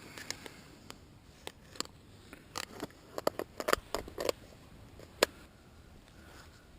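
Small irregular clicks and taps of fishing tackle being handled, a quick cluster in the middle and a single one later.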